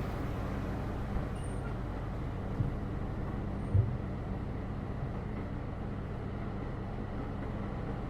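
Heritage tram running along its track, a steady low rumble with a few short knocks, the loudest about four seconds in.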